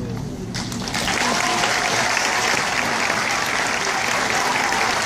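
Audience applauding. The clapping comes in just under a second in, as the last sung note dies away, and then runs on steadily.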